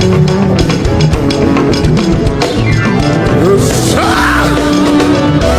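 Live church praise band playing an up-tempo instrumental passage with drum kit and sustained keyboard or guitar notes, with pitch slides near the end.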